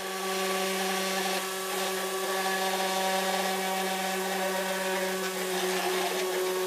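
Small battery-powered electric motor spinning the propeller of a model hovercraft, running at a steady speed: a constant hum at one pitch over a hiss of blown air.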